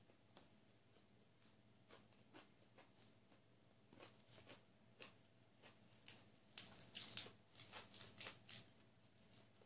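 Quiet eating sounds: chewing with scattered soft mouth clicks, then a dense run of crisp crackles from about six to eight and a half seconds in as a crisp lettuce leaf is torn and folded by hand.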